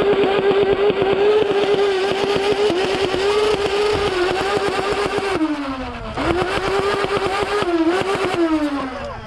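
LiPo-modded Nerf Rival Nemesis flywheel blaster firing full-auto: a steady high motor whine with a rapid clatter of balls being fired. The pitch falls as the flywheels spin down about five and a half seconds in, then it spins back up and fires again, winding down once more near the end.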